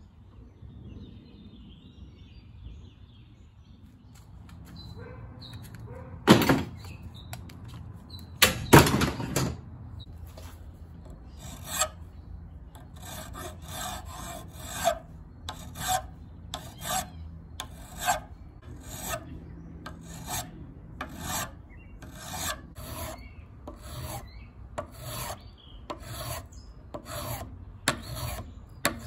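Flat hand file scraping in repeated strokes across a wooden knife handle and its pins, shaping the scales flush. The strokes start about six seconds in, two louder ones first, then a steady run of about one and a half strokes a second.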